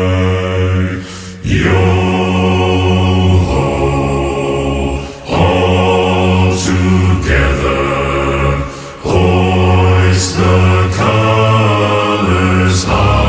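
Background music with chanted or choral vocals over a low sustained drone, in phrases that break about every four seconds.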